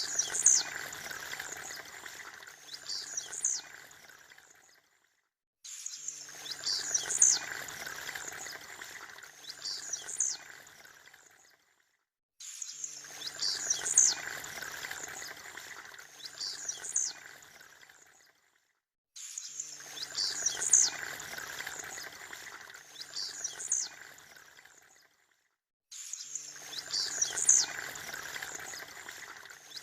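Blue-black grassquit (tiziu) singing: short, sharp, high chirps, two to each phrase, over a steady rushing background noise. The same few seconds repeat about every 7 seconds, with brief silences between.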